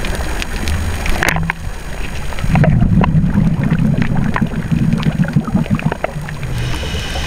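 Underwater sound of a scuba diver's breathing through a regulator: a burst of exhaled bubbles rumbles for about three seconds in the middle, over a steady low rumble and scattered sharp clicks.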